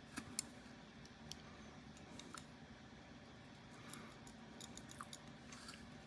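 Faint small metallic clicks and ticks of tiny lock pin parts being handled while an Assa Twin 6000 cylinder is taken apart: one sharper click near the start and a run of light clicks near the end.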